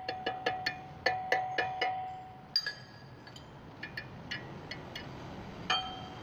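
Small hammer striking a ground-down old hand tap, used as a square punch, to drive it into a red-hot drilled steel workpiece to form a square hole. The blows come quickly, about four a second, and each one rings metallically. The fast tapping stops about two and a half seconds in, followed by a few scattered lighter taps and one last ringing blow near the end.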